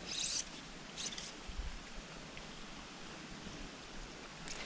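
Steady outdoor background hiss with three brief, soft rustles: one at the start, one about a second in, and one near the end.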